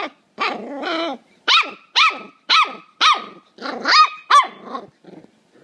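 Puppy barking: a run of short, high-pitched yaps, each falling in pitch, about two a second, with a longer, drawn-out growly bark near the start.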